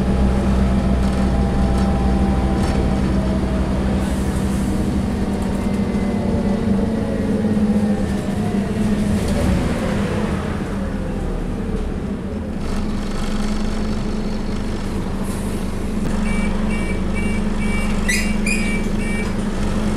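Scania N230UD double-decker bus's five-cylinder diesel engine and drivetrain, heard from inside the cabin while driving, with a steady low hum. About ten seconds in the engine pitch falls away as the bus eases off, and near the end a run of about seven short high beeps sounds.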